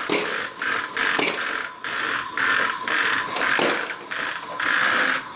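Toy vacuum cleaner being run back and forth: a hissing whir that cuts in and out in short bursts, about two a second.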